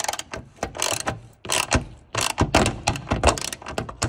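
Socket wrench ratcheting in quick runs of clicks, stroke after stroke, as a 13 mm deep socket tightens a hood strut ball stud into its T-nut.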